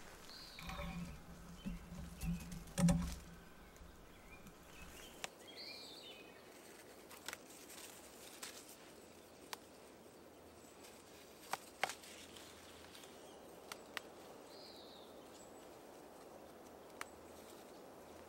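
Handheld camera knocking and brushing through vegetation for the first few seconds. Then faint rustling and small snapping clicks of stinging nettle tops being picked by hand, with a bird chirping a few times.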